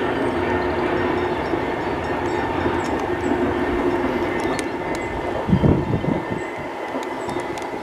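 SBB Re 421 electric locomotive hauling an Intercity train across a stone viaduct: a steady rumble of wheels on rails with a faint even hum. There is a brief low thump about five and a half seconds in.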